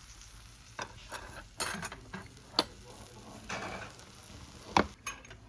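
Scattered clinks and knocks of tableware, spoons and chopsticks against dishes at a meal, with a few brief rustles; the loudest knock comes near the end.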